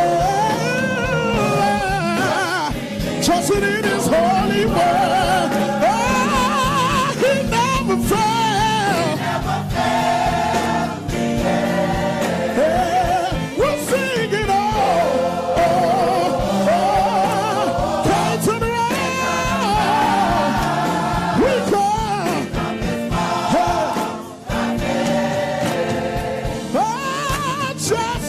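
Gospel choir singing a gospel song, with a male soloist leading in front of the choir.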